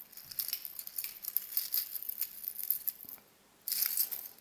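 Pieces of metal jewellery clinking and jingling as a hand rummages through a heap of silver chains, earrings and bracelets. There is a short pause about three seconds in, then a louder flurry of jingling near the end.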